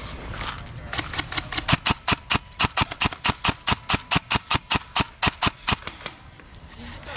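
Airsoft guns firing: a rapid, even run of sharp cracks, about six a second, starting about a second in and stopping about six seconds in, then a single crack near the end.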